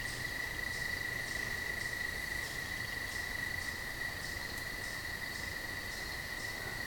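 Electric potter's wheel running with a steady high-pitched whine, with a faint tick repeating about every two-thirds of a second.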